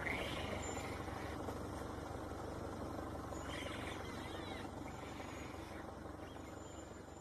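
Vehicle engine idling steadily, fading toward the end, with a few faint high chirping calls at the start, around the middle and near the end.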